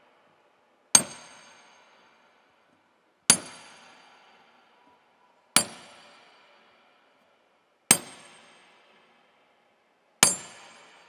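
A hammer driving a nail into a wooden cross with slow, single blows: five strikes about two and a half seconds apart, each ringing out and fading before the next.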